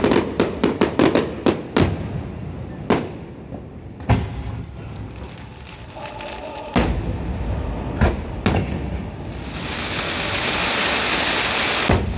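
Aerial fireworks shells bursting: a rapid string of booms in the first two seconds, then single booms every second or two. From about ten seconds in there is a steady crackling hiss of glittering stars, with another boom near the end.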